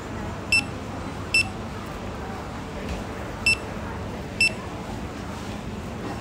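Handheld barcode scanner giving four short, high beeps as packs are scanned, in two pairs about a second apart, over steady low background noise. Each beep marks a successful read.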